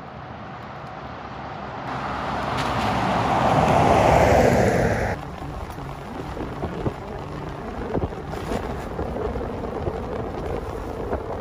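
A 2020 Toyota 4Runner approaching and passing close on a wet paved road: its tyre and engine noise swells to a peak about four seconds in, falling in pitch as it goes by. About a second later the sound cuts to the steadier tyre, road and wind noise of the moving vehicle, heard from its hood-mounted camera.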